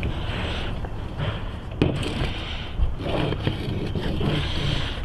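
Hands working a new Continental Grand Prix bicycle tire onto a road wheel rim: rubber scraping and rubbing against the rim, with a sharp click a little under two seconds in.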